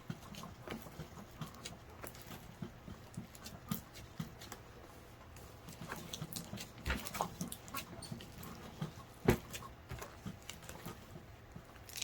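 Sticky clear slime being kneaded and stretched by hand, giving a steady run of irregular wet clicks and pops, with one louder snap about nine seconds in.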